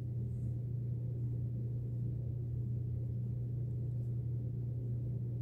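A steady low hum holds unchanged throughout, with nothing else standing out; the pen strokes are not audible above it.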